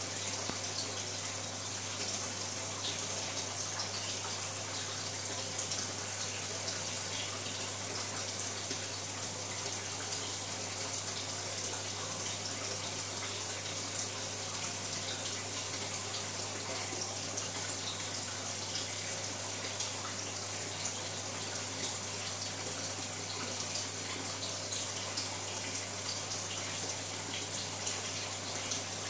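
Aquarium water circulation: a steady rush of running, splashing water with a constant low hum underneath, from the tank's filter or pump.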